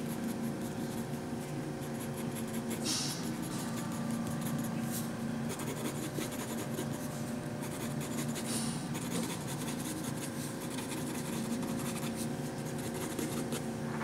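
Graphite pencil scratching on sketch paper in quick short strokes, shading in grass, with a few louder strokes scattered through. A steady low hum runs underneath.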